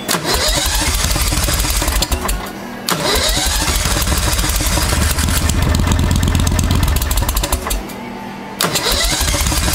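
V-twin Briggs & Stratton engine in a golf cart being cranked by its starter in three separate tries, each one spinning up with a rising whine. The engine is hard to start after sitting for six months.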